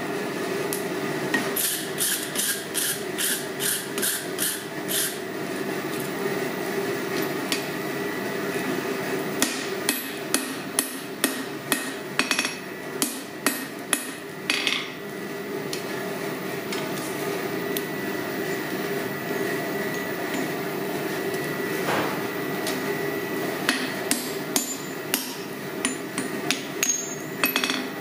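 Ball-peen hammer striking a red-hot square steel bar on an anvil, forging down the sides around a punched hole. It comes in three runs of quick, evenly spaced ringing blows, about two or three a second, with pauses between, over a steady drone.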